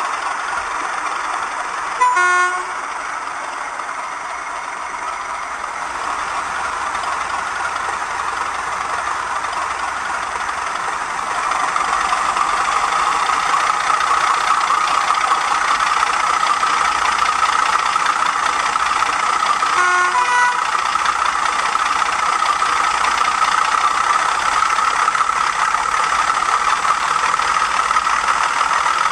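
Diesel engine sound from the Hornby TTS Class 31 sound decoder, played through the model locomotive's small speaker. A steady running note grows louder about twelve seconds in and stays up. A short horn toot comes about two seconds in and another around twenty seconds in.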